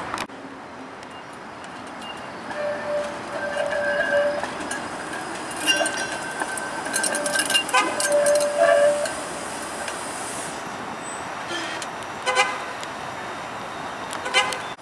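Flexity Outlook streetcar rounding the tight curve of the turning loop, its wheels squealing on and off against the rails, with a few sharp clacks as the wheels cross the track work.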